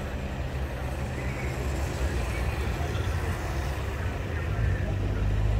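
Motor vehicle engines with a low steady drone that grows louder near the end, over a steady hiss.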